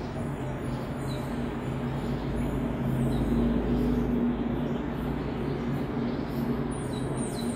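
Steady low background hum, with a deeper rumble swelling up about two seconds in and fading away by about five seconds.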